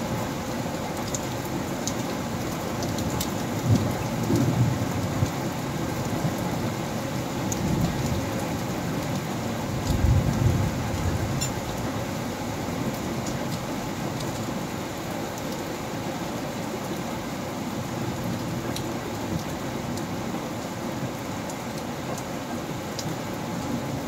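Steady rain with distant thunder rumbling low, swelling about four seconds in and again about ten seconds in, with scattered drip ticks.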